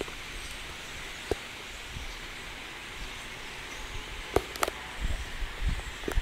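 Steady outdoor background hiss by a pond, broken by a few short sharp clicks, with low rumbling on the microphone near the end.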